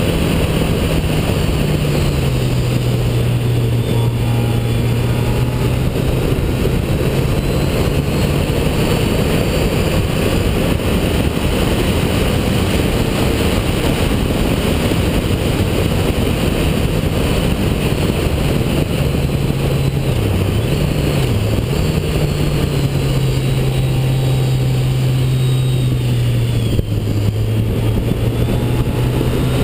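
Motorcycle engine running at speed under heavy wind and road rush. The engine note steps down about two seconds in, dips and rises quickly about two-thirds of the way through as the throttle changes, climbs again, then drops near the end.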